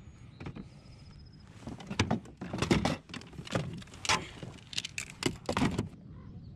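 A plastic fish measuring board being pulled out and set down on a fishing kayak, clattering and scraping against the hull in a quick run of irregular knocks. The knocks start about two seconds in and stop near the end.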